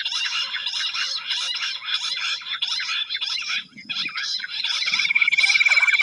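A chorus of jungle bush quail calls: rapid, high, rhythmic call notes repeating about four to five times a second, as used to lure wild quail. The calls break off briefly a little before four seconds in. Near the end a steady high trill joins them.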